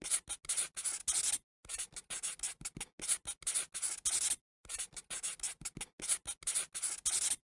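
Pen scratching on paper in quick strokes as words are handwritten, with short breaks about a second and a half and four and a half seconds in.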